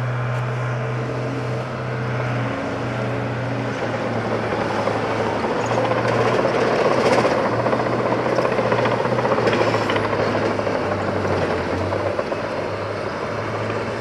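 Heavy diesel construction machinery running with a steady low hum, a rush of machine noise swelling in the middle.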